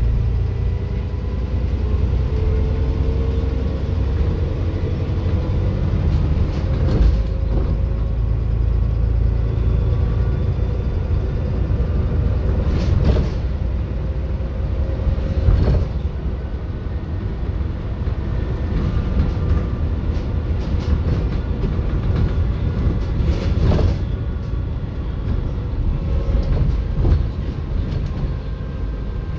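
Alexander Dennis Enviro 400 double-decker bus running on the move, heard from inside: steady engine and road rumble, with a few sharp knocks from the body over bumps.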